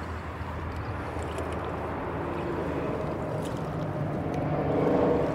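Steady drone of traffic on a highway bridge, an engine hum under tyre noise, swelling toward the end as a vehicle passes.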